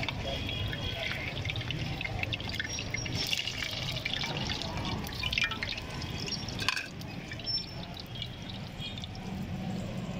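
Hot oil sizzling and crackling around triangular potato-stuffed parathas frying in a wide pan, over a low steady rumble.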